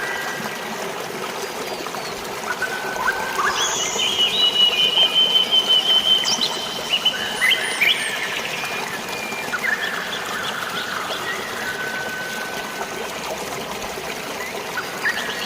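Steady trickle of flowing water with birds calling over it: whistled notes, with a fast run of repeated high whistles from about four to eight seconds in.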